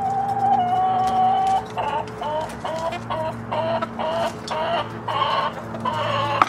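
Hens clucking while they peck at food. One drawn-out call comes first, then a quick run of short, evenly spaced clucks.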